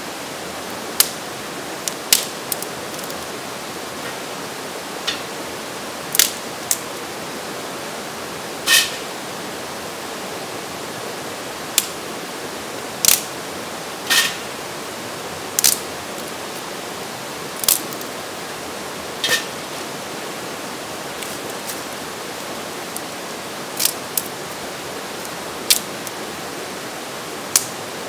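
Irregular short, sharp knife strokes cutting into a wooden stick, one every second or two, over the steady rush of creek rapids.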